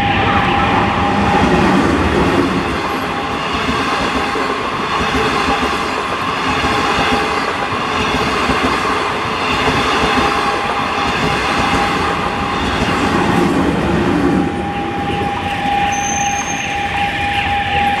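Harmony Great Wall (Hexie Changcheng) diesel multiple unit passing over a level crossing, its wheels rattling and clacking over the rails. A level-crossing warning alarm sounds as a steady tone, plainest at the start and again near the end once the train has gone by.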